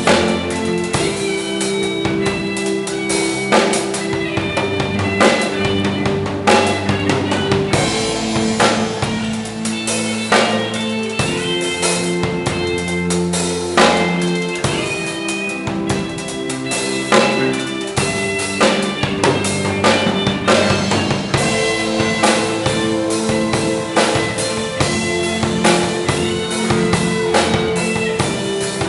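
Instrumental band playing: guitar, electric bass and keyboard over a drum kit, with the kick, snare and rimshots prominent.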